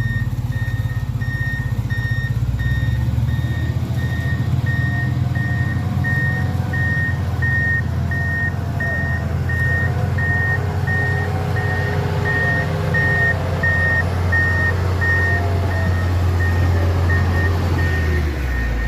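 A heavy vehicle's reversing alarm beeps steadily, about two beeps a second, over its engine running.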